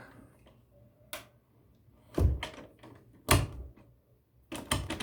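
A door with a mortise lock being worked open and shut: a sharp latch click about a second in, two solid thuds about a second apart, then a quick rattle of clicks and knocks near the end.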